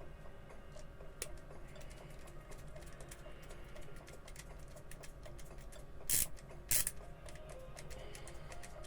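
Small screw being turned into a 3D-printed plastic mouse shell with an Allen key: a run of faint ticks and clicks, with two short, loud scrapes about six and seven seconds in. Faint background music underneath.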